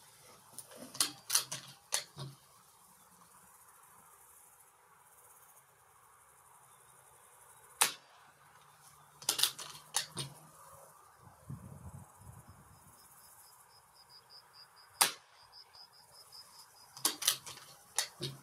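Two sharp shots from a Reximex Throne Gen-2 .177 PCP air rifle, about seven seconds apart, with bursts of small clicks from the action being worked before and after them. A cricket chirps in a fast pulsing trill during the second half.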